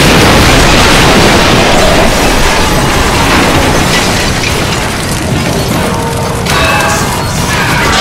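Library sound effects: a loud, sustained noisy rush that slowly fades over several seconds, followed about six and a half seconds in by a shorter effect with a few held tones.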